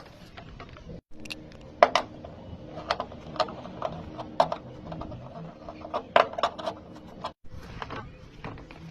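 Irregular knocks and taps, a few a second, over a steady low hum. The sound cuts out completely for an instant about a second in and again near the end.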